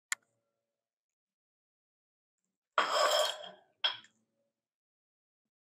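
A woman coughing and clearing her throat after a hard swallow of a tough bite of pie crust: one rough burst of nearly a second about three seconds in, then a shorter one. There is a short click near the start.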